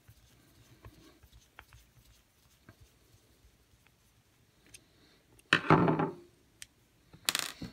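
Faint small ticks and scrapes of a screwdriver turning out a small screw from a steel bracket on a brass valve fitting. About five and a half seconds in, a screwdriver is knocked down onto a wooden countertop, and there is a second short clatter of handled parts near the end.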